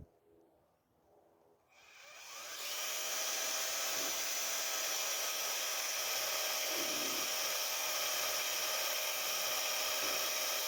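Power drill spinning up about two seconds in and then running steadily, driving a self-tapping screw used as a drill bit to bore a starter hole into a metal pipe.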